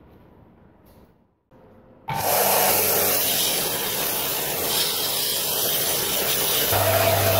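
Belt sander grinding the steel face of a hammer head flat, a loud steady abrasive hiss that starts suddenly about two seconds in. A low motor hum joins near the end.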